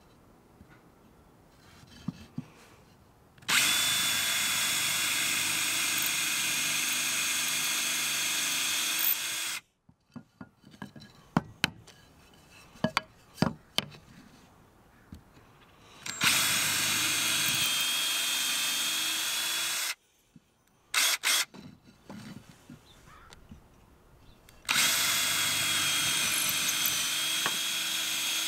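Cordless drill boring holes through a strip of wood: three long runs of steady motor whine, each several seconds long, starting about three seconds in, about sixteen seconds in and near the end. Between the runs come scattered clicks and knocks of the wood and drill being handled.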